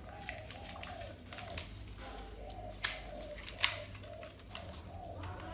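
Two sharp clicks under a second apart as a plug is pushed into a power strip, over quiet background music.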